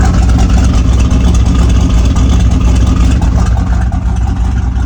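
Turbocharged LQ4 6.0-litre V8 idling loud and steady through an open 4-inch exhaust cutout, with a choppy idle from its cam and timing.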